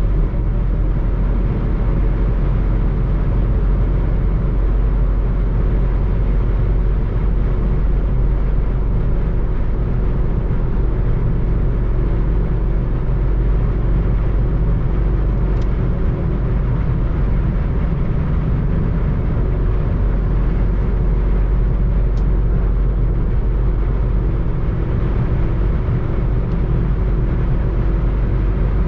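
Inside the cabin of an Opel Corsa C with a 1.0-litre three-cylinder petrol engine cruising flat out at about 160 km/h. The engine drones steadily near 5000 rpm, mixed with wind and road noise.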